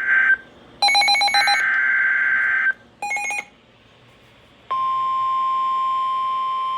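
NOAA Weather Radio alert beginning: short buzzy bursts of SAME digital header data tones, then, about two-thirds of the way in, the steady single-pitch 1050 Hz warning alarm tone starts and holds.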